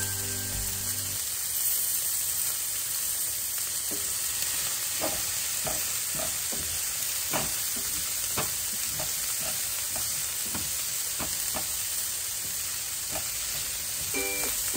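Chopped food sizzling in oil in a square nonstick grill pan on a gas burner, a steady hiss. From about four seconds in, a long metal utensil stirs it, clicking and scraping against the pan. Music fades out at the start and comes back in near the end.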